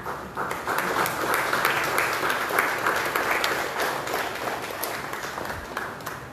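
Small audience applauding. The clapping starts right away, is strongest in the middle and dies away near the end.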